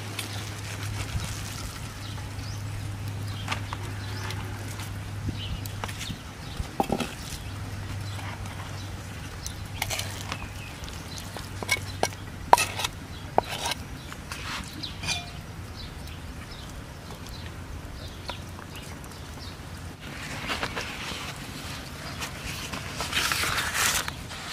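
A knife scraping and tapping against a mortar as pounded crab-prahok paste is scooped out and spread onto a banana leaf, giving scattered sharp clicks. Near the end the banana leaf rustles and crinkles as it is folded over the paste.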